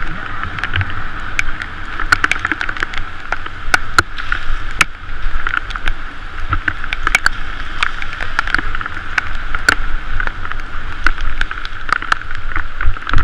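Bicycle tyres rolling through water on a rain-soaked road, a steady hiss of spray with scattered sharp ticks and a low rumble underneath.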